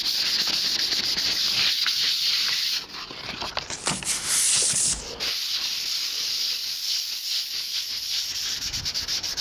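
Fine 400-grit sandpaper rubbed by hand over a primered car hood in rapid strokes, scuffing the primer before painting. It stops about three seconds in, a steady hiss follows for about a second, then the sanding resumes.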